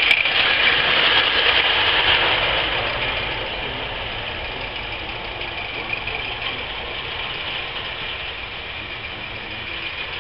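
Live-steam garden-scale locomotive running past with a steady steam hiss, loudest in the first couple of seconds and easing off as it moves away, with a fainter hiss carrying on after.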